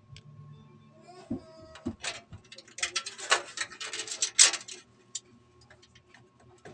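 Hands handling hard parts: a couple of soft knocks, then about two seconds of scraping and rubbing starting about three seconds in, over a faint steady low hum.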